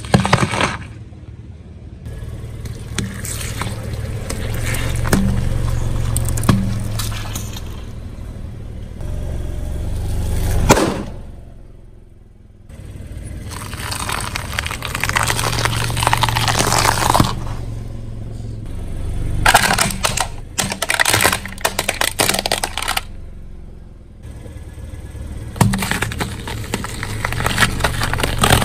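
A car tyre rolls over and crushes red onions, then bitter melons, which crack, crunch and split in repeated bursts with sharp snaps. A steady low hum runs underneath.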